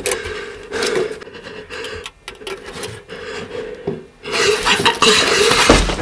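Scraping and rubbing of a hand dragged over a rough rock surface, growing louder about four seconds in, with a low thud near the end.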